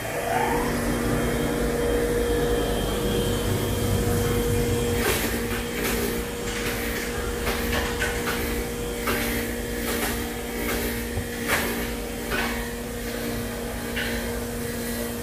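Electric motor of a workshop air compressor spinning up just after the start and then running with a steady hum. From about five seconds in it is joined by a dozen or so sharp metal clanks from a tyre lever working against a steel wheel rim as a tyre is seated and filled with sealant.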